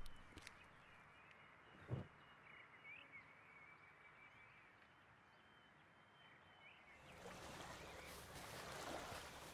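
Quiet outdoor ambience with faint bird chirps and a single thump about two seconds in. About seven seconds in, a louder even hiss of beach ambience comes in.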